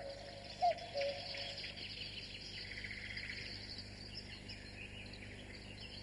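Outdoor nature sound: many birds singing with insects chirping, and one low two-note call about half a second in.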